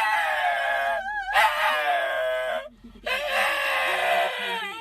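A dog howling: three long, high howls with a wavering pitch, each about a second or more, with short breaks between them.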